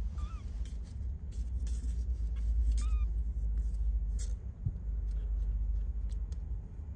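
British Shorthair–Ragdoll cross kittens play-fighting: two short, high squeaky mews, one at the start and one about three seconds in, amid faint scuffling clicks. A steady low rumble lies under it all.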